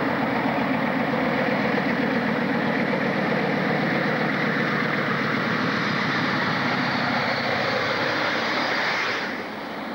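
Heavy diesel freight locomotive running through a station, its engine loud and steady as it approaches and passes close by. Near the end the engine sound drops away suddenly as the locomotive goes past, leaving a lower rumble from the train.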